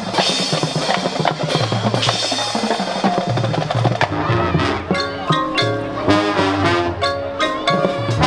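Marching band percussion playing a snare and bass drum passage, with the brass section coming in about halfway through on short, separate notes.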